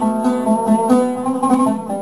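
Solo oud played with a plectrum, improvising a taqsim in maqam Hijaz Kar Kurd: a melody of single plucked notes, with a run of fast repeated plucks on one pitch in the second half.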